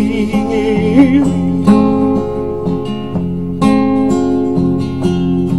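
Acoustic guitar strummed in a steady rhythm. A singer holds the last word of a sung line for about the first second, then the guitar carries on alone.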